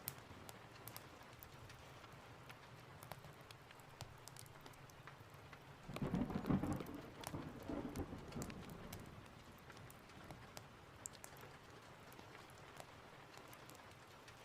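Steady rain with a roll of thunder that starts about six seconds in and fades over a few seconds, over scattered small sharp ticks and crackles.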